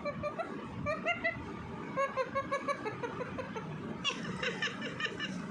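Pet parrot chattering in a quick run of short, laugh-like notes.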